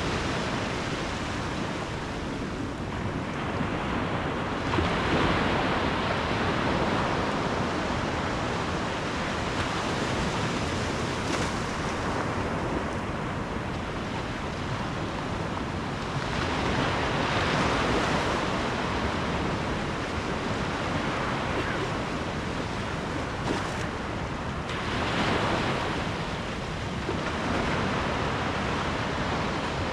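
Ocean surf: a continuous wash of waves on the shore that swells three times as waves break and then recedes.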